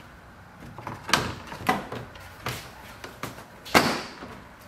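Plastic radiator support cover being pressed onto the front of a Lexus IS250's engine bay and its push clips snapped in: about five sharp plastic clicks and knocks, the loudest near the end.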